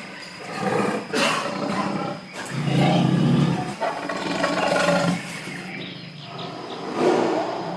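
Tiger roaring, several loud, rough calls, the longest and deepest a little under halfway through.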